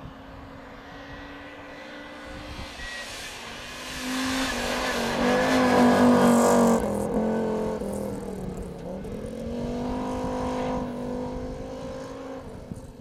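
Audi quattro rally car's turbocharged five-cylinder engine passing at speed on snow. It grows to its loudest about halfway, drops in pitch as it goes by, revs up again a few seconds later and fades away.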